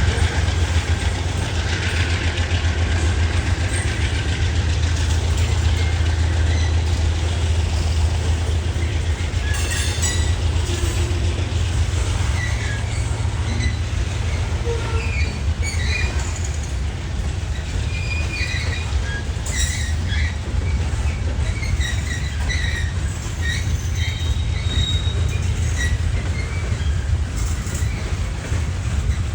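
Train moving through the station: a steady, loud low diesel rumble with rail noise, and short high-pitched wheel squeals coming and going in the second half.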